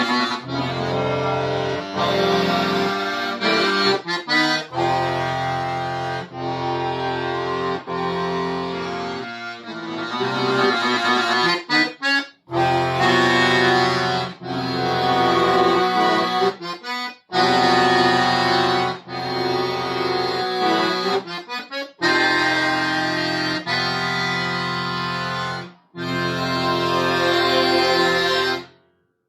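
Solo accordion playing a classical concert piece: held chords over bass notes, broken by short quick figures and brief rests. The playing stops shortly before the end.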